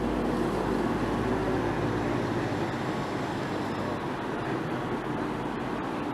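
Steady outdoor din of engines and machinery, an even rushing noise with a low hum under it; the deepest rumble fades away a second or two in.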